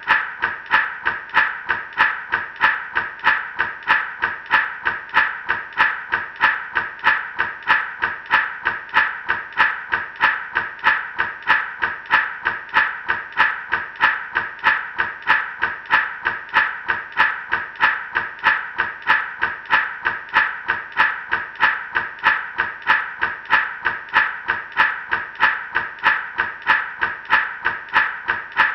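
Gourd rattle shaken in a steady, even rhythm, about two to three shakes a second, each shake a dry burst of rattling seeds.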